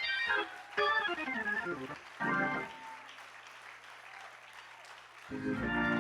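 Organ playing short bursts in a pause of speech: a brief chord, a quick falling run of notes, another short chord, then a held chord near the end.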